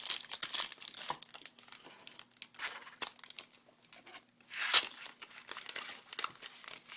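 Foil trading-card pack wrapper crinkling and rustling as it is handled and torn open, in irregular bursts, the sharpest about five seconds in.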